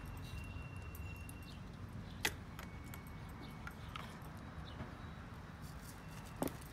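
Small metal tools being handled: sockets on a socket rail clinking and rattling, with a loud sharp clink about two seconds in and another near the end.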